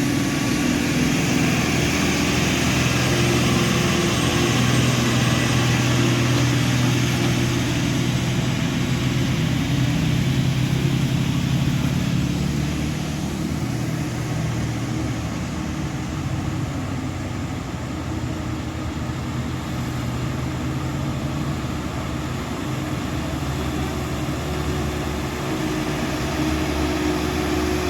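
Heavy truck's diesel engine running steadily under load as it pulls up a steep incline. It is a little quieter in the middle and grows louder again near the end.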